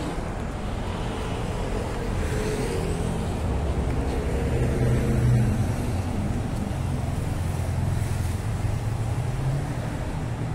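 Road traffic: cars driving past on a city street, a steady engine and tyre noise that swells about halfway through.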